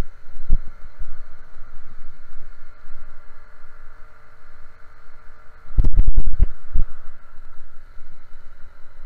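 Small engine of the ridden off-road vehicle running at a steady speed, heard through a helmet-mounted microphone with wind rumble. A cluster of loud jolts or thumps comes about six seconds in.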